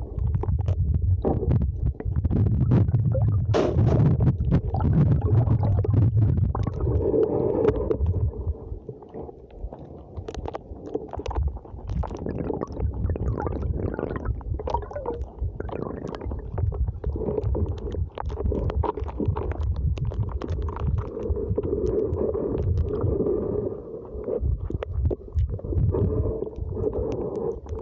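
Muffled low rumbling and sloshing of water and slush against a camera held in the water at an ice hole, with many small clicks and knocks. It is heaviest for the first eight seconds, then comes and goes.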